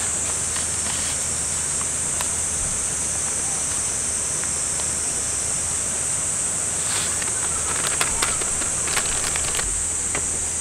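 Steady high buzz of insects over the rushing of a river. About two thirds of the way through come a few light clicks and rustles.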